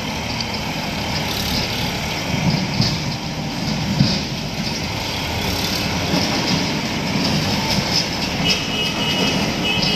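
Diesel tractor engines running as tractors haul loaded trolleys past on a dirt road, a steady low rumble with irregular peaks. A thin high tone sounds twice near the end.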